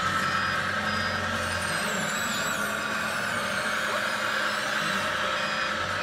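Scale RC construction models working: a steady whine of electric motors and gears, with a low engine hum from a sound module. A short high beep repeats, like a reversing warning, and a higher whine wavers up and down in the middle.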